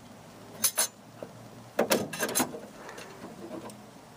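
Xenon headlight ballast of a BMW Z4 being pulled out of the headlight housing. There are two sharp clicks just under a second in, then a cluster of clicks and rattles around the middle as it comes free.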